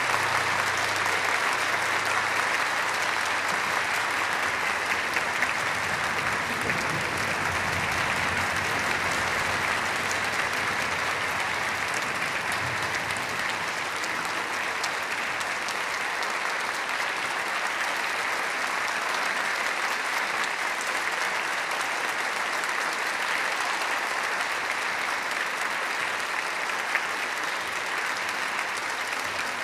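Concert audience applauding steadily. The ringing of the orchestra's final chord dies away in the first second.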